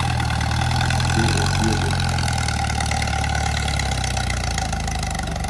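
Farm tractor's diesel engine running steadily under heavy load, hauling a high-stacked trailer of sacks; a low, even drone that eases off slightly near the end.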